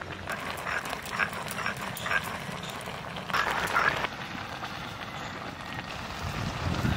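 Pot of broken rice simmering over a wood fire: scattered crackles and pops, with a brief louder noisy burst about three and a half seconds in.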